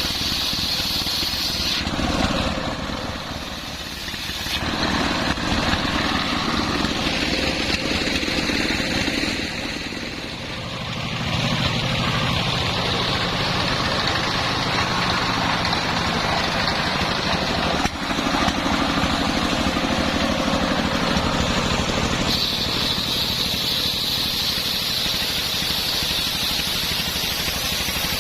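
Homemade engine-driven circular sawmill running through a coconut-palm trunk: a continuous engine drone under a high saw whine. The whine is strongest at the start and again near the end, and the sound dips briefly twice as the load on the blade changes.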